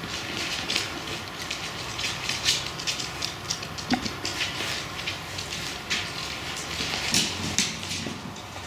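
Welsh Terrier puppies' claws clicking and scrabbling irregularly on a laminate floor as they tussle and walk about, over a low steady hum.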